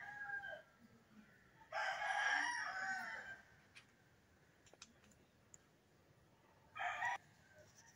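A rooster crowing: one crow trails off about half a second in and a longer one follows around two seconds in, then a short call near the end.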